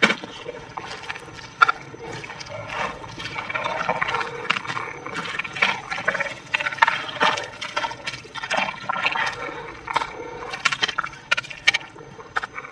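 Hands scooping and scraping damp, muddy soil out of a small dug hole, with many irregular crunches and scrapes of earth.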